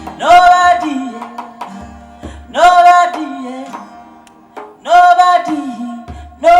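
A song: a voice sings a short phrase that repeats three times, about every two seconds, with low bass notes in between.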